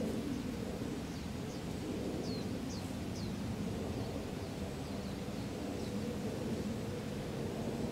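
Steady low outdoor background rumble, with a bird giving a run of short, high, falling chirps between about one and three and a half seconds in.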